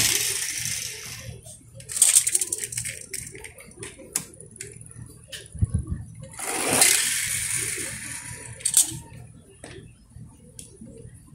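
Small toy cars rolling down a board ramp and onto concrete: a rushing rattle of little wheels at the start and again about six and a half seconds in, each fading as the car rolls away, with scattered clicks and clatter of the cars landing and bumping along.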